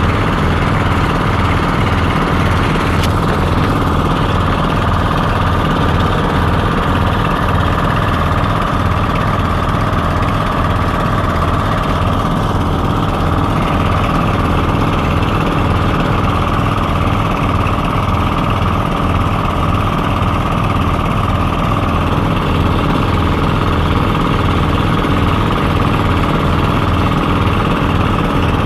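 Small boat engine running steadily at a constant speed, an even drone with a low pulsing beat.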